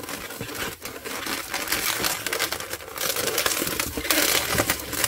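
Latex 260 modelling balloons rubbing and crackling against each other as a bubble is twisted and locked onto a bear-ear twist. The rubbing grows louder about three seconds in.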